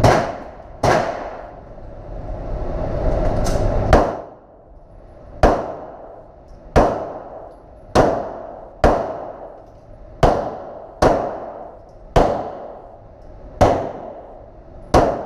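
Pistol shots fired one at a time, about a dozen in all, mostly a second or so apart with a longer gap early on. Each shot rings out into an echoing tail.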